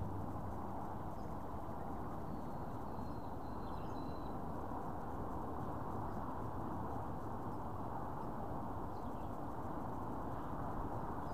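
Steady low outdoor background noise with a few faint bird chirps about two to four seconds in.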